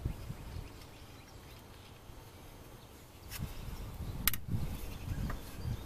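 Work under a car's hood, done by hand: a few sharp clicks, the loudest about four seconds in, from tools and bolts being handled as a power steering pump bracket bolt is unthreaded, over a low rumble.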